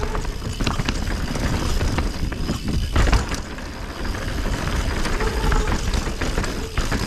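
Mountain bike descending a dirt trail: tyres rolling over dirt with frequent knocks and rattles of the bike over roots and bumps, and wind rushing over the microphone.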